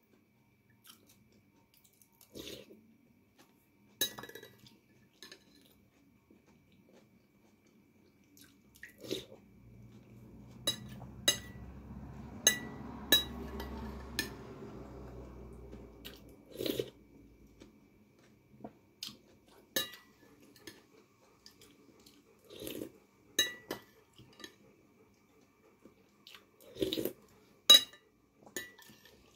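Cutlery clinking against a dish during a meal: sharp, ringing clinks at irregular intervals, loudest near the end. A low steady noise runs for several seconds in the middle.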